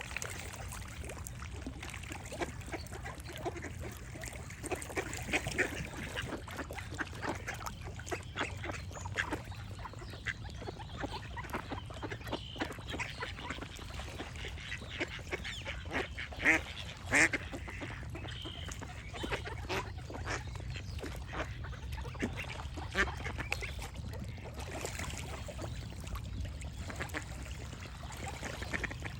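Ducks quacking in runs of short, sharp calls, loudest about halfway through, over a steady low rush of water. A few brief high bird chirps come in here and there.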